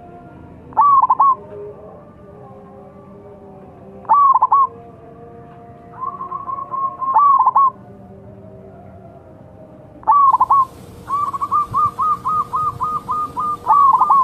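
Zebra dove (perkutut) cooing: short phrases of quick coo notes every three seconds or so, then near the end a long run of rapid, evenly spaced coos.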